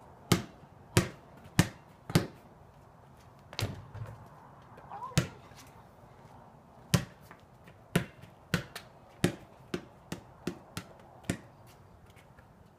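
Basketball bouncing on a concrete driveway: steady dribbling, about one bounce every two-thirds of a second, thinning to a few scattered bounces in the middle before regular dribbling starts again.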